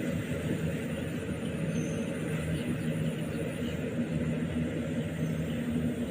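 Diesel engine of a rice combine harvester running steadily at an even speed.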